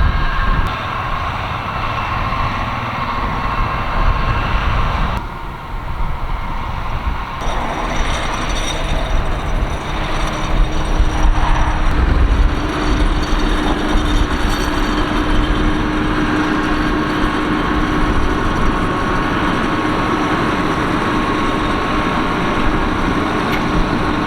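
Tractor engines and tractor-drawn carrot harvesters working in the field, a continuous loud machinery rumble and clatter. A steady mechanical whine joins in about halfway through.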